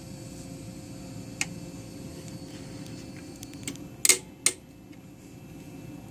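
Allen wrench clicking against metal while loosening the screws on the clamp-height bar of an electronic tacker: a faint click about a second and a half in, then two sharp clicks close together about four seconds in, over a steady low hum.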